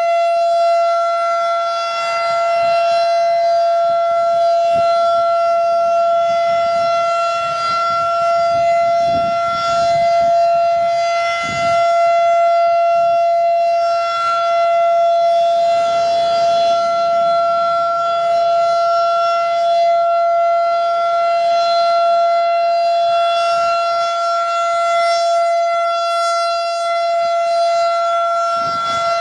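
Federal Signal 2001 rotating outdoor warning siren sounding a steady tone during a test. The pitch holds constant while the level rises and falls slightly as the siren turns.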